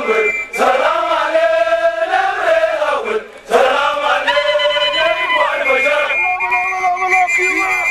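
Crowd of soldiers chanting together, many men's voices holding long notes in phrases, with a brief break about three seconds in.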